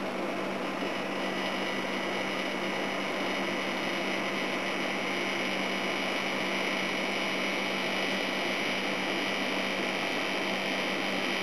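Air conditioning unit running just after start-up: compressor and fan, a steady hum over an even rush of air, a little louder after the first second. The unit has refrigerant gas in it.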